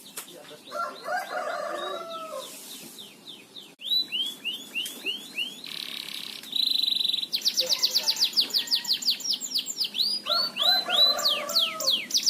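Domestic canary singing: fast trills of high falling notes, a short buzzy note and a held whistle, building into a long rapid trill near the end. Twice a lower, rougher call sounds underneath the song.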